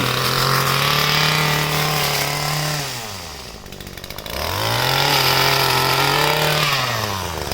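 Small two-stroke engine of a handheld tree-trimming power tool running at full throttle. About three seconds in it drops to idle, then revs back up a second later and holds high before dropping again near the end.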